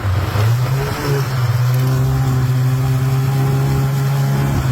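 Snowmobile engine picking up speed in the first second or so, then running at a steady, higher pitch.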